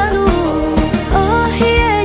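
Music: a wavering, ornamented melody over a steady drum beat.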